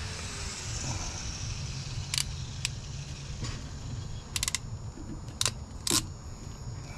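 Hand crimping pliers clicking as terminals are crimped onto wires for a wiring harness: a handful of sharp clicks, with a quick cluster about four and a half seconds in, over a steady low hum.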